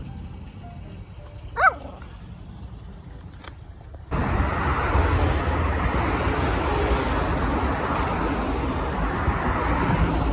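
A small dog gives a single short yip about a second and a half in. From about four seconds on, a loud, steady rumbling noise takes over.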